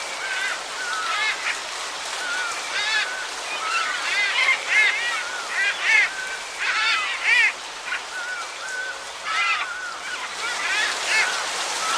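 Steady rain hiss with many short, arching animal calls chirping over it, repeated throughout and loudest in the middle.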